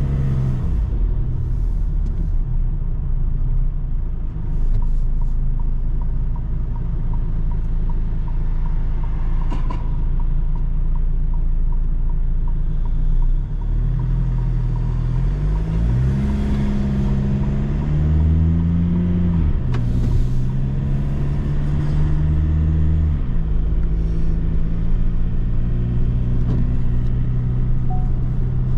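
Delivery van engine running on the road with a steady drone. About halfway through, the engine note rises, dips, rises again and falls back as the van picks up speed, then settles to a steady drone again.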